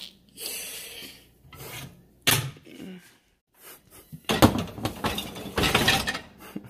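Kitchen handling clatter: knocks, a sharp click and rubbing of utensils and cookware, busiest in the second half.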